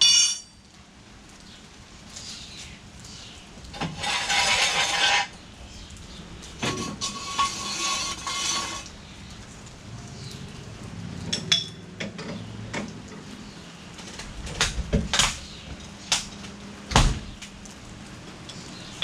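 Metal tools and parts clinking and clattering during garage work on a car, with a ringing clang at the start and two short noisy bursts of a second or two. A heavy knock comes near the end.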